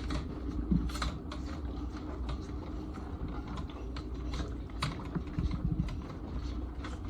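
Robotic calf feeder running with a steady low hum, with many irregular light clicks and taps over it.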